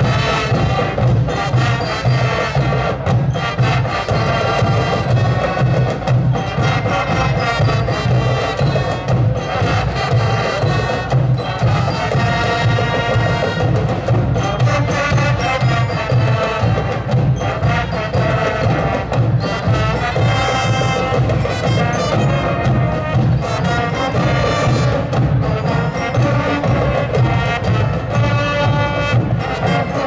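Student marching band playing: a melody on wind instruments over a steady drum beat and frequent sharp percussion strikes.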